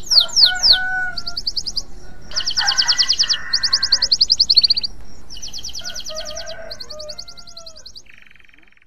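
Male canary in breeding condition singing: a string of fast trills of rapidly repeated high notes, broken by a few lower whistled notes, fading out near the end.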